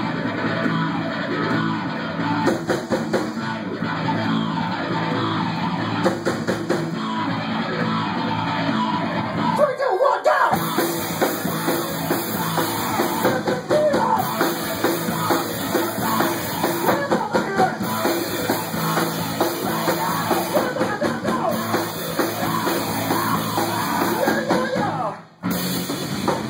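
Rock band playing a loud song with drum kit and guitar; the sound cuts out briefly near the end.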